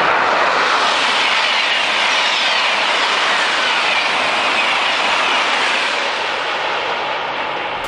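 Thalys PBA/PBKA high-speed trainset passing: a steady rushing noise with a falling whine, easing off slightly near the end.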